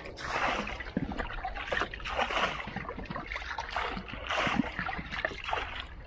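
Water splashing and sloshing in a swamped canoe as it is bailed out by hand, in repeated scoops about once a second.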